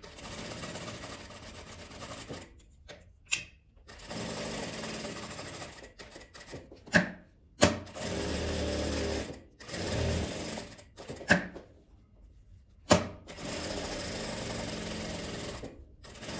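Industrial straight-stitch sewing machine stitching around a fabric piece. It runs in several short stretches, stopping and starting again, with a few sharp clicks in the pauses.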